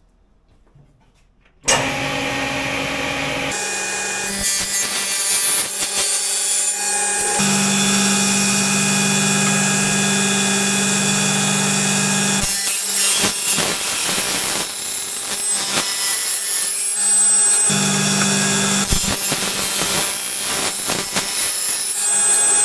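Table saw switches on suddenly about two seconds in and runs, its blade cutting aluminium profiles, with many steady high tones over the motor.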